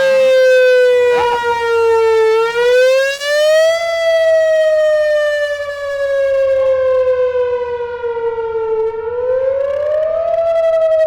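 Electronic outdoor warning siren sounding a wail tone during a test. Its single loud pitch slides slowly down, rises quickly about two seconds in, slides slowly down again, then rises once more near the end.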